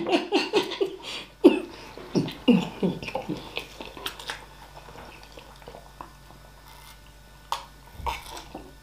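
Two people chewing mouthfuls of hard-boiled egg, with short muffled mouth-closed vocal sounds in the first three seconds. After that it goes quieter, with faint mouth clicks and a few sharper clicks near the end as they sip water.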